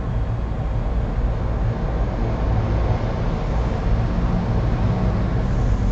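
Steady low rumble of background noise, with no distinct events.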